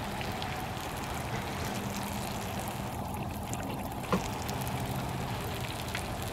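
Chicken in thick masala sizzling in a steel tawa over charcoal while a wooden spatula stirs and scrapes it, with small crackles throughout. One sharper knock of the spatula against the pan comes about four seconds in, over a steady low hum.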